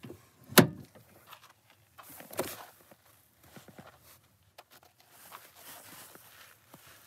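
A sharp knock about half a second in, then scuffs of shoes on dry dirt and small knocks as a person steps out of the vehicle.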